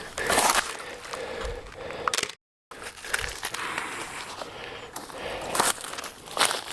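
Irregular footsteps of a person walking through bush undergrowth, with a brief dropout to silence about two and a half seconds in.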